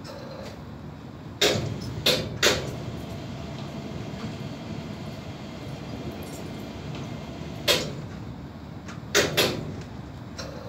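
Suspended gondola platform's hoists running with a steady mechanical hum while the platform is raised, broken by sharp metallic clanks: three about a second and a half in, three more towards the end.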